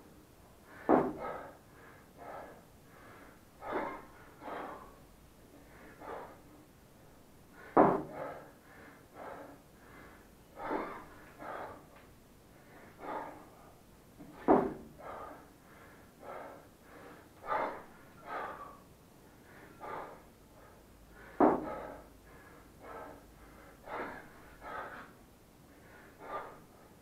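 A man breathing hard and rhythmically while lifting a 28 kg kettlebell overhead again and again. There is a loud forced exhale about every seven seconds, once per lift, with shorter breaths in between.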